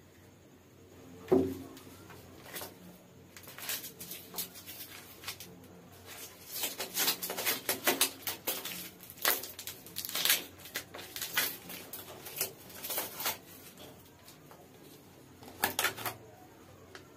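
Aluminium foil crinkling and crackling as foil food wrapping is handled and a foil takeaway container is opened, in a run of sharp crackles that comes in clusters. A single thump about a second in is the loudest sound.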